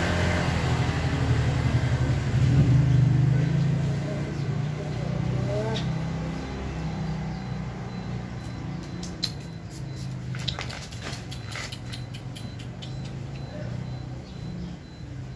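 A motor vehicle engine running close by, loud at first and fading steadily over several seconds, followed by a scattered run of light clicks and ticks.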